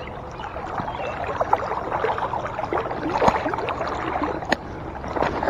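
Shallow river current gurgling and splashing close by, with small irregular water clicks and one sharp click about four and a half seconds in.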